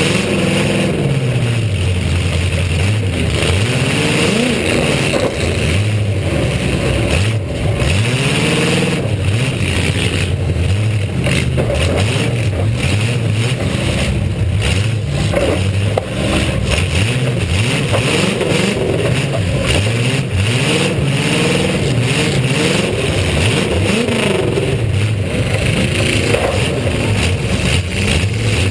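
V8 demolition-derby car engines revving up and down over and over, loud and continuous, the pitch rising and falling every second or two as the cars accelerate and back off.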